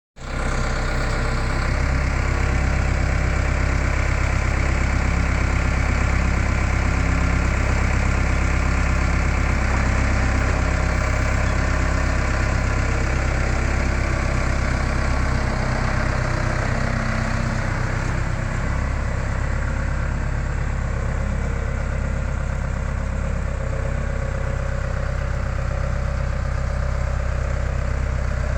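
Skid steer loader's engine running steadily.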